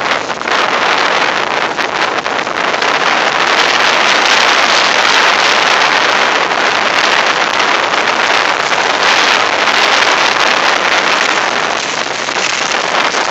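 Hurricane wind rushing in a loud, even hiss with rain, the gusts buffeting the microphone; it eases slightly near the end.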